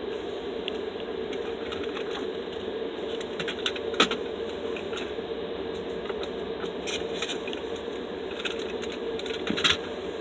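Steady hum inside a car's cabin, with scattered small clicks and crackles throughout, a sharper click about four seconds in and a cluster near the end.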